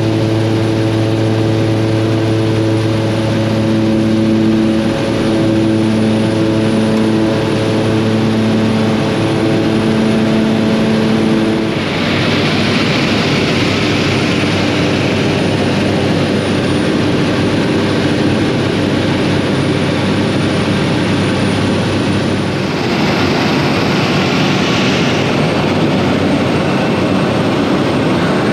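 Float plane's propeller engine running loud and steady with a humming drone. About twelve seconds in, the drone gives way to a harsher rushing noise.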